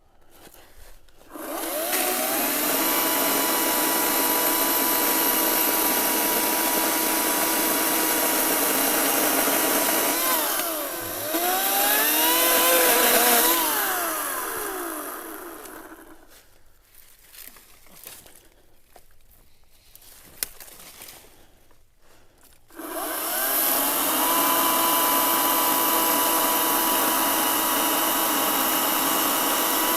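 Echo ECCS-58V battery chainsaw running at a steady high whine, cutting dry hickory limbs. About ten seconds in its pitch sags and recovers as the chain loads in a cut, then it winds down. After a pause of several seconds it starts up again and runs steadily.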